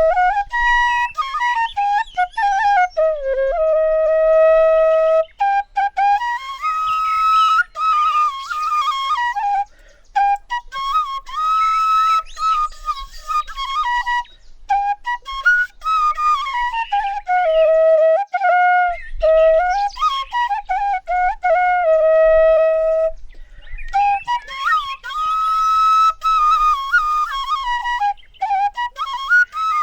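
A flute playing a slow melody, with long held notes and gliding slides between them.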